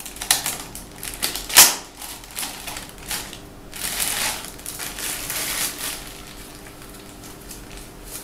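Plastic wrapping crinkling and rustling in irregular bursts as it is pulled off a slit lamp's head. The loudest sharp crackle comes about a second and a half in, and the rustling fades toward the end.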